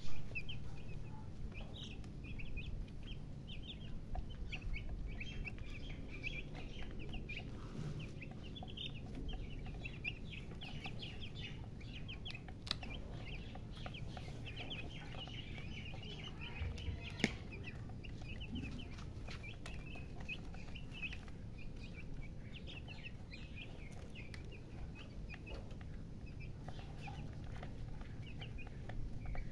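Baby chicks peeping: many short, high chirps overlapping one another without pause, over a low rumble, with an occasional sharp click.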